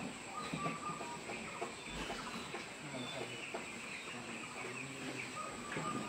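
Flock of broiler chickens calling: a faint, steady chorus of many short calls.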